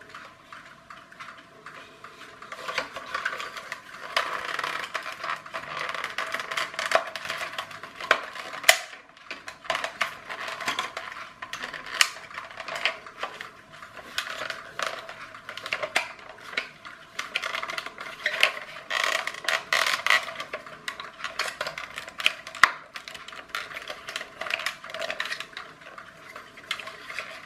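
Hard plastic body of a clockwork toy fire engine being handled and pried at by hand: irregular clicks, taps and scrapes, with a few sharper knocks, the loudest about nine seconds in.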